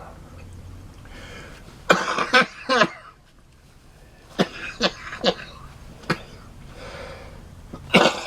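A man coughing hard in several short bouts and clearing his throat, his mouth and nose burning from a big mouthful of wasabi.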